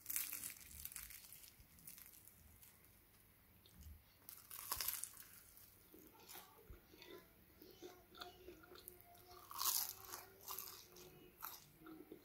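Crunchy deep-fried pinkaso (savoury Hausa dumpling) being broken open, bitten and chewed close to the microphone. Crisp crunches come loudest three times, at the start, about five seconds in and near ten seconds, with smaller crackly chewing sounds between. The crunch shows the crust is fried crisp, as it should be.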